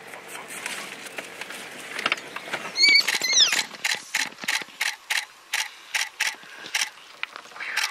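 African wild dogs at an impala kill: a short burst of high-pitched squealing calls about three seconds in, followed by a steady run of sharp clicking, about two to three clicks a second.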